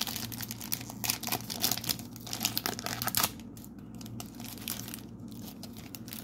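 Foil wrapper of a trading card pack crinkling and tearing as it is ripped open by hand, a dense crackle for about three seconds, then fainter rustling as the stack of cards is slid out.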